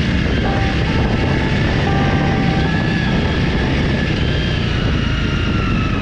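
Honda CRF300L's single-cylinder four-stroke engine running steadily while the bike rides along a dirt forest trail, heard from on the bike as a heavy, even low rumble with a few faint whining tones above it.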